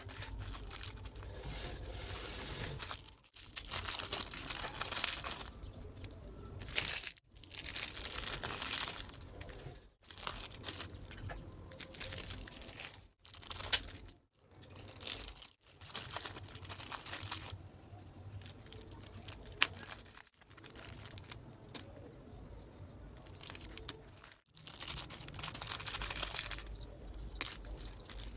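Parcel packaging crinkling and tearing as it is opened, in short stretches broken by several sudden brief silences.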